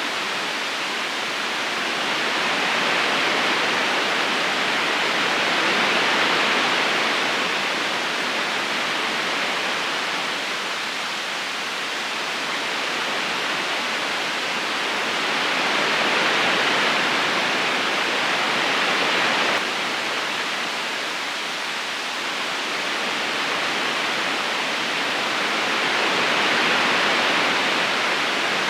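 Steady rushing of a flowing river current over stones, swelling and easing slowly every several seconds, with a slight sudden dip about two-thirds of the way through.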